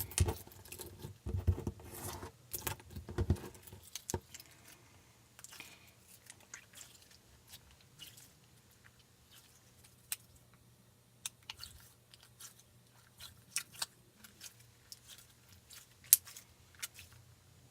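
Slime being worked by hand with seashell glitter pieces: a run of soft squishes and taps in the first few seconds, then scattered small clicks and taps.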